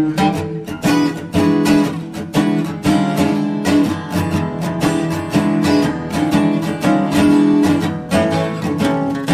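Background music: acoustic guitar, plucked and strummed, with quick note attacks.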